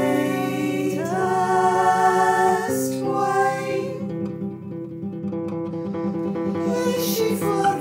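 Background music: held sung notes that slide upward about a second in, over plucked acoustic guitar.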